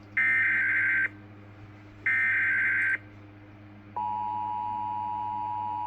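Emergency Alert System alert signal: two one-second bursts of SAME header data about a second apart, then a steady two-tone attention signal that starts about four seconds in.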